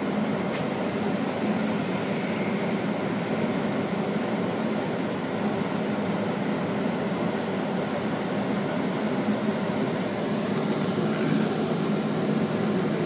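A steady low mechanical drone, with a brief high hiss in the first couple of seconds.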